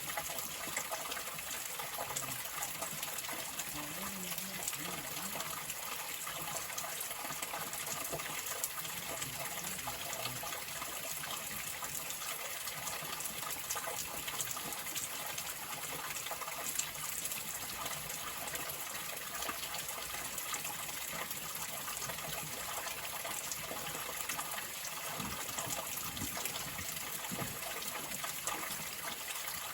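Running water rushing steadily, an even hiss-like gush with no breaks.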